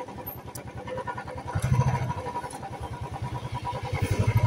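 A vehicle engine running, its rapid low firing pulses swelling louder about one and a half seconds in and again near the end.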